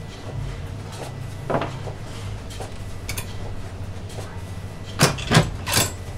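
Heavy-duty long-reach lever stapler stapling a thick booklet: three sharp clacks in quick succession about five seconds in, after a faint knock, over a steady low hum.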